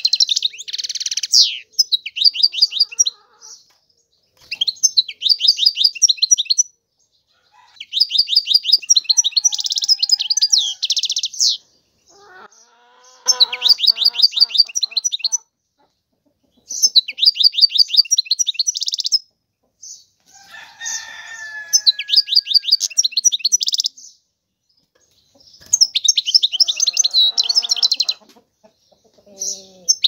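European goldfinch singing: bursts of fast twittering and trills, each one to four seconds long, with short pauses between. Fainter, lower-pitched calls sound in the background now and then.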